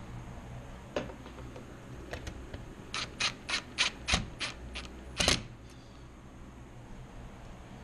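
Hand tools at work putting shelf brackets up on a wall, screwing or tapping their fixings in: one click, then a quick run of sharp taps and clicks, about three or four a second, ending in a louder knock.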